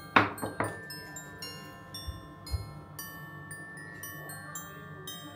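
Background music of chiming, glockenspiel-like mallet tones. A quick cluster of sharp knocks near the start, as objects are set down on a countertop, then two soft thumps about two seconds in.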